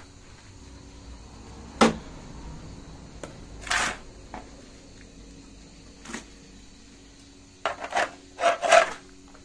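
Scrapes and knocks of manure being scooped into containers: a sharp knock about two seconds in, a longer scrape near four seconds, and a quick cluster of scrapes near the end, over a steady low hum.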